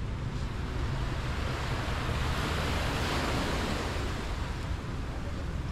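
Ocean waves washing onto the shore: a single surge of hiss that builds and fades about halfway through, over a steady low rumble.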